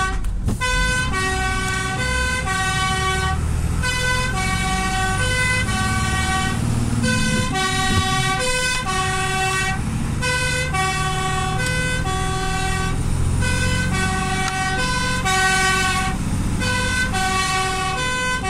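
Fire engine's two-tone siren alternating steadily between a high and a low note, breaking off briefly a few times, heard from inside the cab over the truck's engine running.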